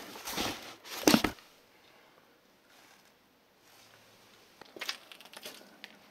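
An old hardback book handled over a cardboard box: paper rustling, then a thud about a second in as the book is put down into the box. After a near-quiet pause come faint light knocks and clicks near the end.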